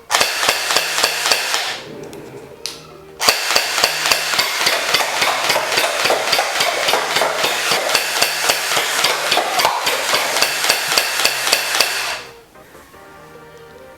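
Battery-powered gel-ball toy rifle (M16/M416 style) firing on full auto: a rapid mechanical clatter in a short burst of about two seconds, then, after a pause, a long burst of about nine seconds.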